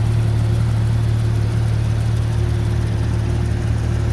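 2016 Porsche 911 GT3 RS's 4.0-litre flat-six idling steadily.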